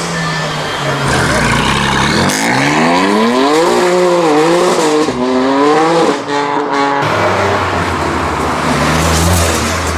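A car engine revving hard as the car accelerates away, its pitch climbing and dropping back at each gear change. It cuts off abruptly about seven seconds in, and another car's engine takes over with a steady low drone.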